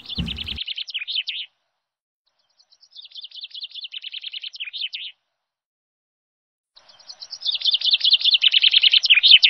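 Songbird singing: three phrases of rapid, high trilled chirps a couple of seconds each, with short gaps between them. The last phrase is the loudest.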